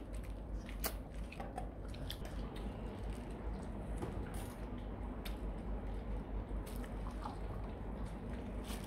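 Rottweilers taking small treats from a hand and chewing them: soft wet chewing and mouth clicks.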